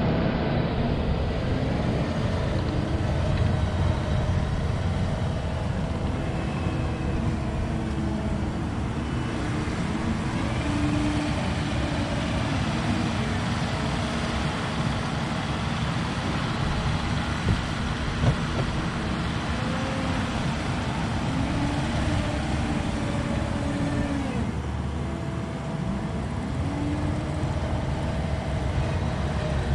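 Diesel engine of a compact earthmoving machine running steadily while working, its pitch shifting a little now and then.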